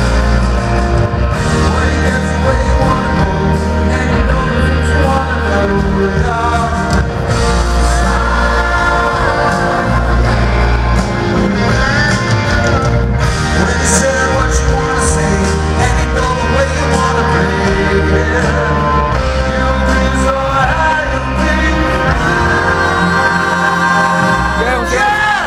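Live rock band playing with a male lead singer at a concert, heard from within the audience.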